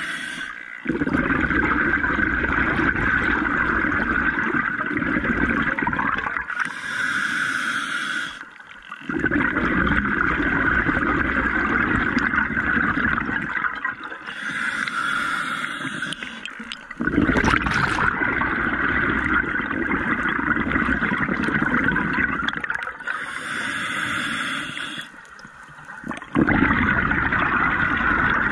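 Scuba diver breathing through an open-circuit regulator underwater: a short hiss on each inhale, then a longer loud bubbling rush of exhaled air. The breaths come about every eight seconds, four in all.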